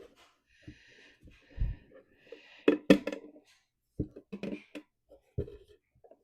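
Knocks, taps and clicks of a wooden diamond-painted tissue box cover being handled and its lid fitted, with a low thud about one and a half seconds in and the loudest sharp knocks near the middle.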